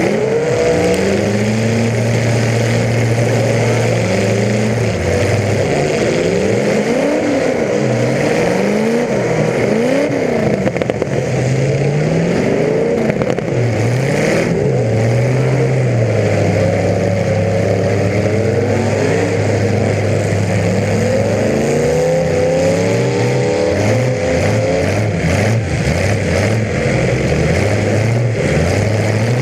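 Several demolition derby car engines revving up and down over and over, with stretches where one is held at a steady speed.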